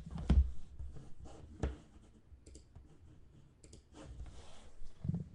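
Scattered sharp clicks and light handling noises at a desk, with a short rustle near the end and a couple of low thumps.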